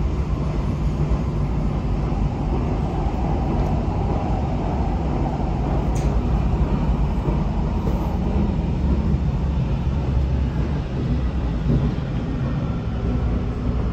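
Munich U-Bahn Type C2 train running between stations, heard on board: a steady rumble of the running gear and wheels on rail, with one sharp click about six seconds in.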